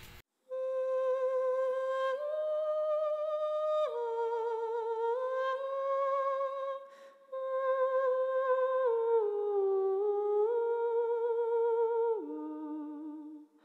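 A slow, eerie wordless melody of long held notes with a quick wobble in pitch, stepping up and down. It breaks off briefly about halfway and sinks to lower notes near the end.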